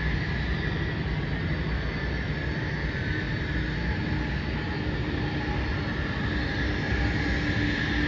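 Twin-engine jet airliner's turbofan engines running at taxi power: a steady rumble with a high whine, getting a little louder near the end as the plane comes closer.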